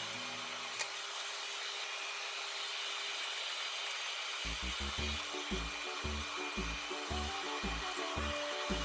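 Soft, steady rubbing and rustling as lettuce leaves and pieces of fried chicken are handled and laid into a metal bento box. A few light clicks come near the start, and background music's bass line comes back in short pulses about halfway through.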